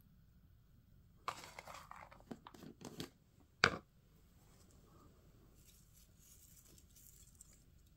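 Rustling and crinkling as chopped green onions are scattered by hand over a plate of braised pork backbone, then one sharp click. Near the end comes a faint, fine hiss as sesame salt is sprinkled on.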